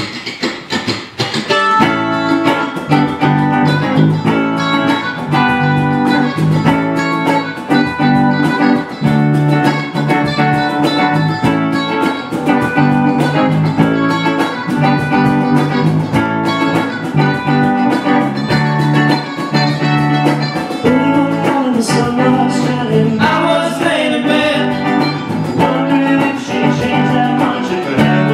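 Small live band playing a song: a mandolin and electric guitars over a cajon beat. The full band comes in about two seconds in.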